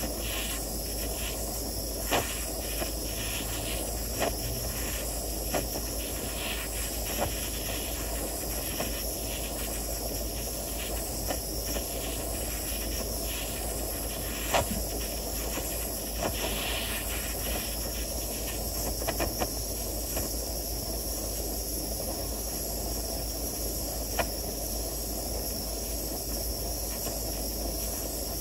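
Butane micro torch flame hissing steadily as it heats a fine silver wire ring toward fusing, with a few sharp ticks scattered through it.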